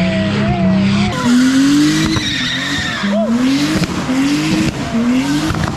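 Drift car's engine revving hard, its pitch climbing and dropping back about once a second, while its tires screech and slide through donuts.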